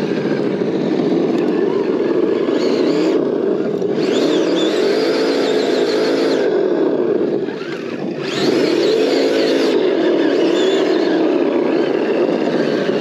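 Engine-sound simulator (Traxxas ESS-Dual) in a TRX-4 Bronco RC crawler playing a rumbling engine note through its speaker. The note rises and falls like revving, twice, as the truck crawls.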